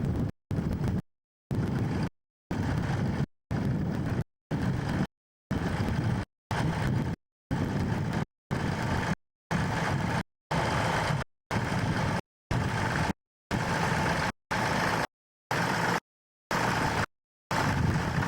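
Tractor engine running with a steady low drone, the sound cutting out to dead silence for a fraction of a second about once a second.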